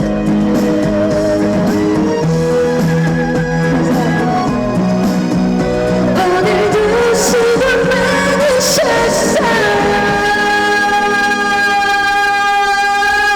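Trot song performed live: a woman singing over a band backing track, closing on one long held note over the last few seconds.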